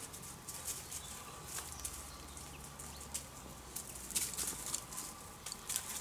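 Dry leaf litter and twigs crackling and rustling under a small terrier's paws as a Ratonero Bodeguero Andaluz moves and sniffs along the ground. The crackles are irregular and get busier about four seconds in.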